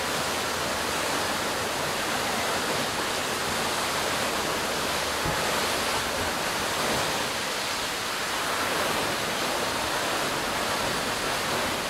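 Tall fountain jet of water shooting up and falling back into its pond: a steady rush and splash of falling water.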